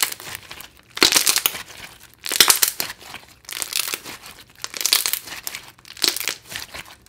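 Thick foam-bead slime squeezed and kneaded in the hands, giving a crackling bubble pop with each squeeze. There are about six squeezes, a little over a second apart.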